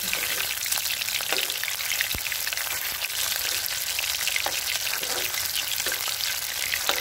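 Semolina-coated fish pieces frying in hot oil in a kadhai, sizzling and crackling steadily, with a few light knocks.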